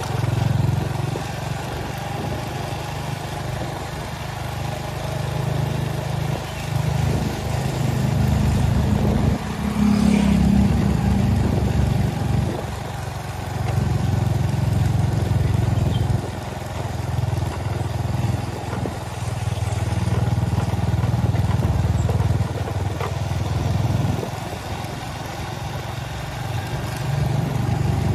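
A motorcycle engine running as it is ridden, its low note swelling and easing several times as the throttle changes.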